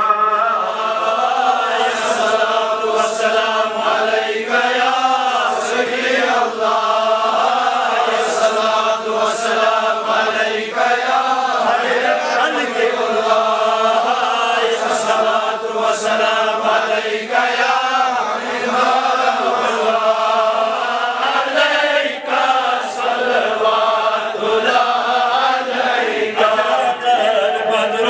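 Men chanting a devotional prayer together without a break, a cleric leading the recitation from a prayer book, the melody rising and falling.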